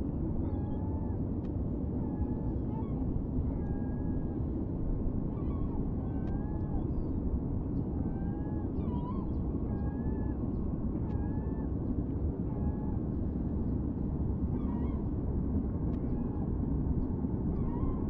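Gulls calling: many short, thin, whistled cries that rise and fall in pitch, scattered throughout, over a steady low rumble of background noise.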